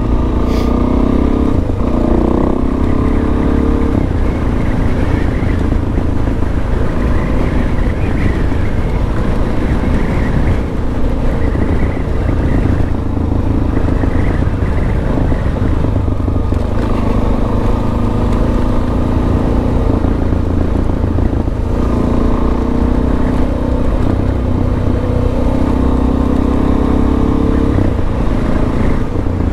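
Suzuki DR-Z400S single-cylinder four-stroke engine running under way, its revs rising and falling several times as the bike accelerates and shifts, over a steady low rumble.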